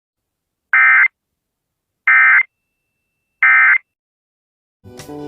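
Emergency Alert System End-of-Message signal: three short, identical bursts of SAME digital data tones, evenly spaced about a second and a third apart with silence between them. Guitar music starts right at the end.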